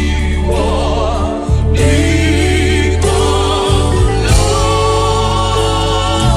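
Gospel worship song: voices singing long held, wavering notes over a steady deep bass accompaniment.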